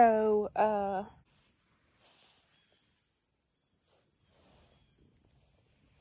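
Crickets chirring steadily: a faint, high-pitched, unbroken drone.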